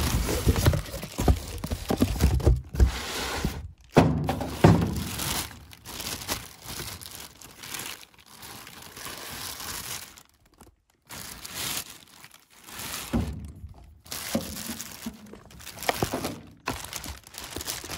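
Plastic packaging bag crinkling and rustling as a chainsaw wrapped in it is handled and pulled around inside a cardboard box, with irregular dull thumps and knocks, heaviest in the first few seconds.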